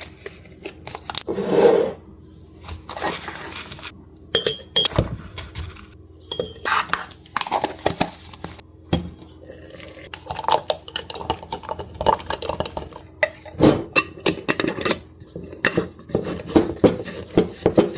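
Dishes and utensils being handled, with a long run of irregular small clinks, taps and knocks.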